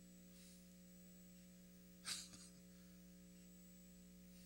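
Near silence with a steady low electrical hum. A brief breathy sound, likely from the speaker, comes about two seconds in.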